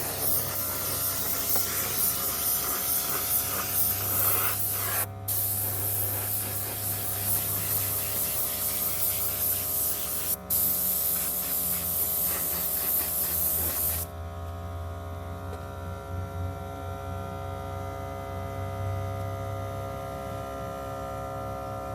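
Compressed air hissing steadily out of an air tool, with two brief pauses. It cuts off about fourteen seconds in. A steady hum runs underneath the whole time.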